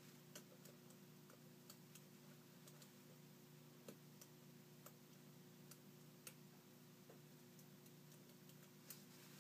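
Faint, irregular small metal clicks, roughly one a second, from a lock pick working inside a Bilock lock cylinder, over a steady low hum.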